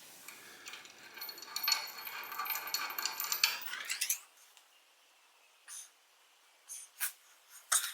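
Metal motorcycle parts clinking and ringing for about four seconds as they are handled, dying away, followed by a few separate light clicks.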